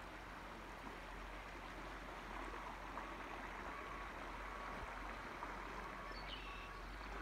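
Shallow river current flowing steadily over riffles, an even, soft rush of water.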